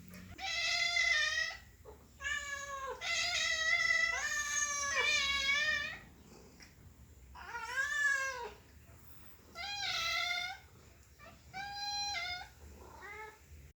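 Domestic cat meowing repeatedly: about seven meows, some long and drawn out with a wavering pitch, separated by short pauses.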